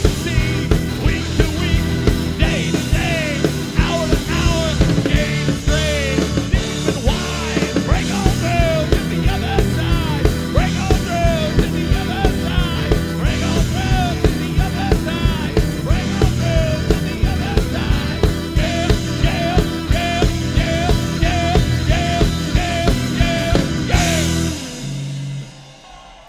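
Live rock band playing: a singer over electric keyboard, drum kit and electric guitar, with a steady beat. About 24 seconds in the song ends on a final hit that rings out and fades.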